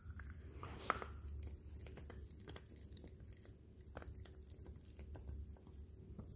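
Small dog gnawing a hand-held chew: faint, irregular crunching and clicking of teeth on the chew, with one sharper click about a second in.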